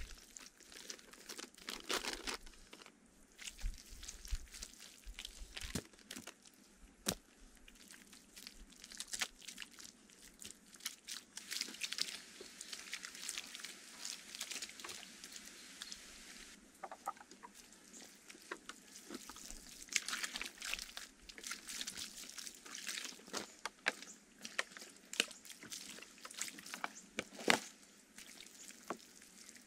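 Wet clay-mud being scooped, packed and smoothed by hand over a bamboo roof: irregular squelches, pats and scrapes, with a few sharper clicks.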